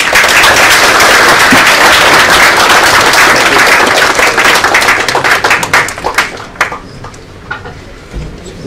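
Audience applauding: dense clapping that starts suddenly and holds for about five seconds, then thins to scattered single claps and dies away.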